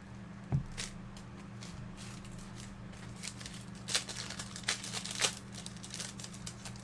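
Foil trading-card pack wrappers crinkling and tearing as the packs are handled and opened, with a few sharper crackles about four and five seconds in, over a steady low hum.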